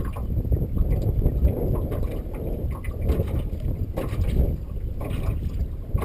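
Wind buffeting the microphone as a low, uneven rumble, with a few light knocks mixed in.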